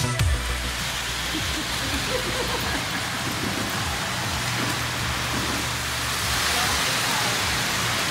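Electric model trains running on a layout: a steady rolling and whirring noise of wheels on metal track, with a low motor hum under it that drops away about two-thirds of the way through.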